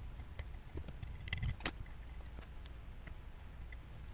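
Light clicks and taps of small metal parts being handled on an automatic-transmission valve body, with a short cluster of sharper clicks about a second and a half in, over a low steady hum.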